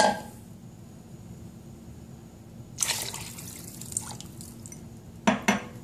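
Liquid poured in a stream into a stainless steel pot of broth, splashing and bubbling from about three seconds in, then fading. A sharp sound at the very start and two quick knocks near the end.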